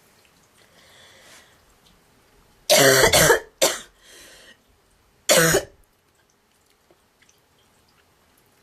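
A girl coughing with a honking, goose-like cough: a long cough about three seconds in, a short one right after it, and another long one about five seconds in.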